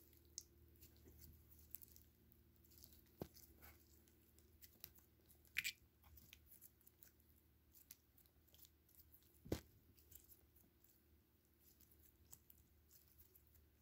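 Faint sticky clicks and crackles of a sticky blend of slimes being stretched and kneaded by hand, with three sharper pops spread through.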